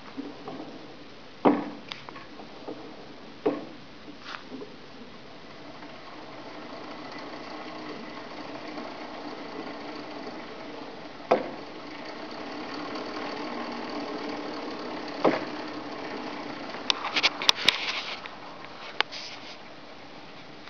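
Krankcycle arm-crank ergometer running as its handles are turned: a steady mechanical whir that builds up over several seconds, with a few sharp knocks and a quick run of clicks near the end.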